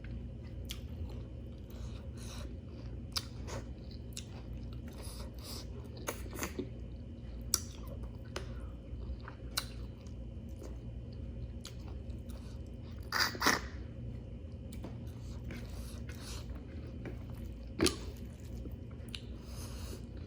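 Close-miked chewing of rice and chicken curry, with many short, wet mouth clicks and smacks. There are louder bursts of eating noise about thirteen seconds in and again near eighteen seconds.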